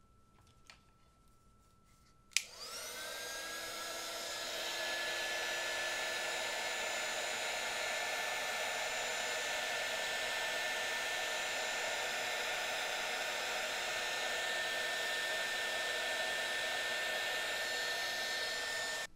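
Hot-air heat gun switched on with a click about two seconds in, its fan whine rising briefly as it spins up, then blowing steadily while shrinking heat-shrink tubing over a fuse's soldered leads. It stops abruptly near the end.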